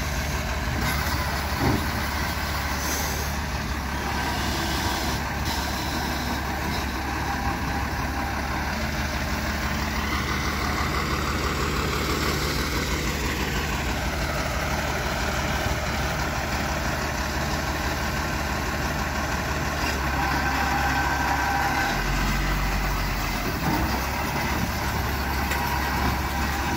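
Flatbed tow truck's engine running steadily while its winch pulls a pickup up the tilted bed, with a whine that rises about ten seconds in and drops back a few seconds later.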